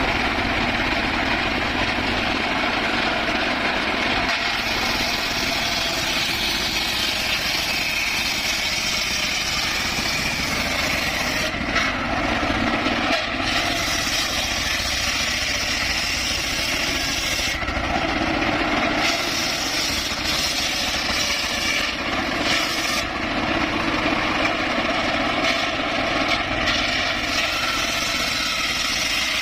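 Circular saw running continuously while cutting wood, a dense, steady machine noise whose tone shifts every few seconds as the cut goes on.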